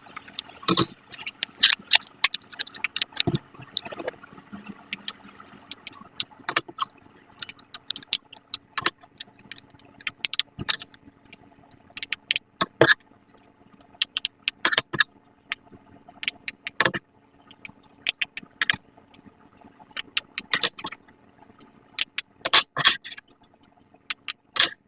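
Silicone pop-it fidget toys having their bubbles pressed in one after another: an uneven run of sharp pops and clicks, several a second.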